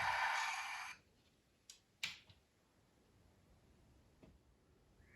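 Traintech sound capsule in a model diesel locomotive playing its idling diesel sound as a hissy drone through its small speaker, which cuts off suddenly about a second in as the idle sequence ends. A couple of faint sharp clicks follow.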